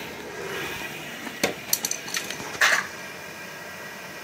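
A few short, light clicks and knocks, about a second and a half in and again near the three-second mark, from handling as the phone is moved back from the boiler, over a faint steady hum.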